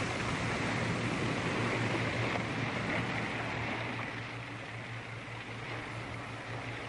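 Steady rushing noise of sea and surf with a low hum beneath, easing a little about four seconds in.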